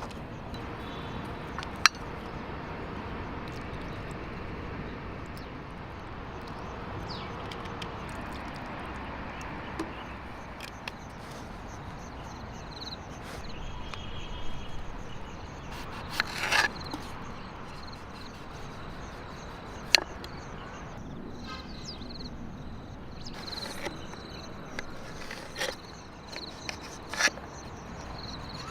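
Steady rainforest background with a thin insect tone, broken by scattered sharp knocks and clicks, the loudest about two seconds in and again about two-thirds of the way through.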